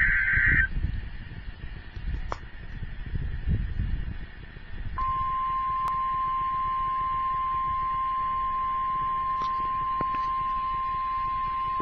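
The tail of an Emergency Alert System digital header, a burst of warbling data tones, ends in the first second. After a few seconds of low background rumble, the NOAA Weather Radio warning alarm tone comes in about five seconds in: one steady single-pitched tone, held without a break, announcing the severe thunderstorm warning that follows.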